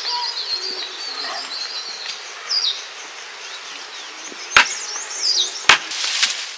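Two sharp chopping strikes about a second apart, over birds chirping; a rustle follows near the end.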